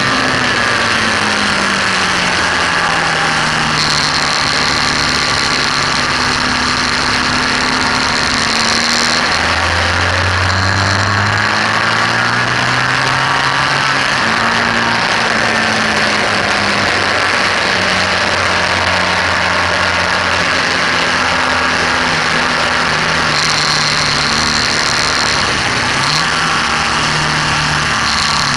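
BMW R1200S's boxer twin engine under way on a race track, its revs falling and rising again and again through the corners, under a heavy rush of wind and road noise.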